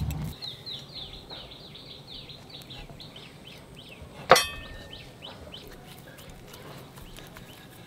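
A small bird calls a quick run of short falling chirps for the first three seconds or so. About four seconds in a knife blade knocks sharply once on the marble slab as it cuts through the dough.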